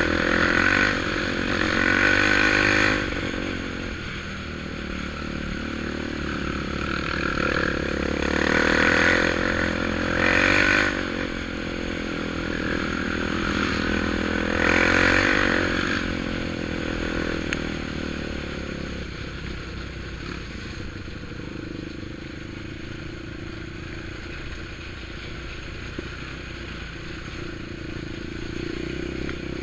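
ATV engine running and revving up in surges, about four times in the first half, then running steadier and quieter.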